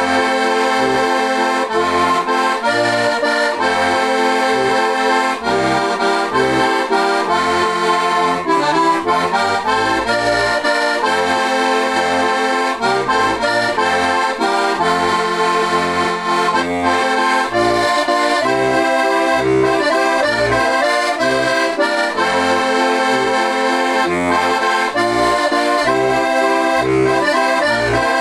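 A four-voice C–F diatonic button accordion (heligónka) with brass tipo a mano reeds plays a lively folk tune. The right-hand melody runs over a steady alternating bass-and-chord accompaniment.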